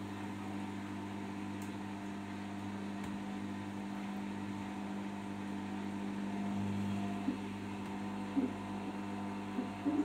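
Arçelik 5083 front-loading washing machine tumbling an overloaded load of mixed clothes in its mini 30°C wash: a steady motor hum as the drum turns, swelling slightly about two-thirds of the way through. A few short pitched chirps come near the end.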